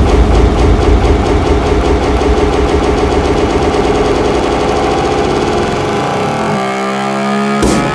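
A motorcycle engine running loud and rough with a heavy low rumble. It dies away about six seconds in, leaving a steady held tone.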